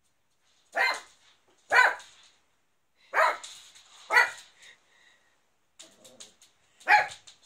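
A puppy barking at its own reflection: five short, sharp barks, four fairly evenly spaced and the last after a longer pause.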